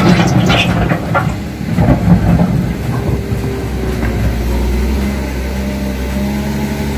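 Caterpillar 930K wheel loader's diesel engine running under work, loud and busy for the first couple of seconds, then settling into a steadier, lower hum after about three seconds.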